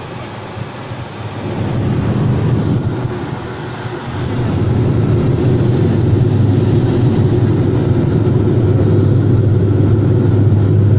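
Cabin noise of a Bombardier Q400 turboprop in flight: a steady drone from the engines and propellers with a strong low hum, growing louder about a second and a half in and again about four seconds in.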